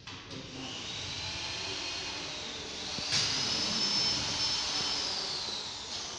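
KT-600X horizontal flow-wrapping machine running, with a mechanical hum and a high whine that rises in pitch about three seconds in, holds, and falls away near the end. A single sharp click comes about three seconds in.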